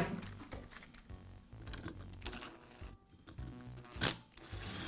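Clicks and light knocks of a cordless screwdriver being picked up and its bit set into a screw in a plastic power-tool handle, with a short burst of the screwdriver near the end as it starts to drive the screw.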